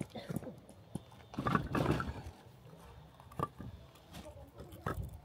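Split firewood pieces knocking together as they are laid crosswise in a log-cabin stack by gloved hands. The knocks are separate and irregular, with a busy cluster about one and a half to two seconds in and single knocks later on.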